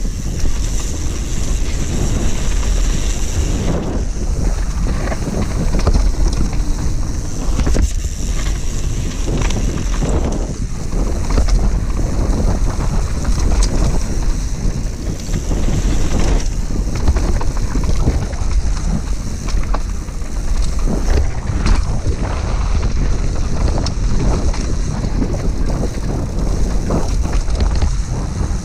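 Mountain bike ridden fast down a dry dirt trail. Wind rumbles on the microphone, with tyre noise and frequent knocks and rattles from the bike over bumps.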